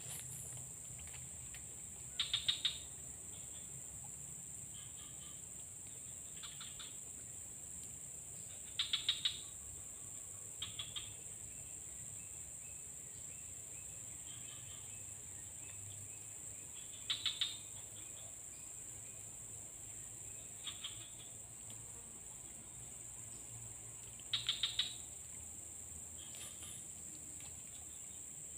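Steady high-pitched drone of insects in dense vegetation. Every few seconds it is joined by short rattling calls, each a quick train of a few ticks.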